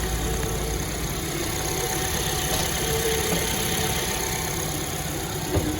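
Suzuki Ignis engine idling steadily with a newly fitted water pump, running without the bearing whir. A single short knock near the end.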